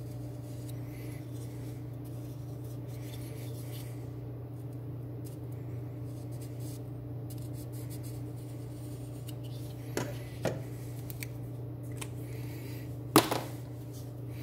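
Steady low hum with faint scratching of a Sharpie marker on the knife's steel bevel. Two light clicks about ten seconds in and a sharp knock near the end, as the knife and the bench stone in its holder are handled on the metal workbench.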